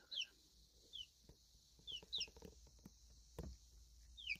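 Baby chicks peeping softly: short high peeps that fall in pitch, coming singly and in quick twos and threes.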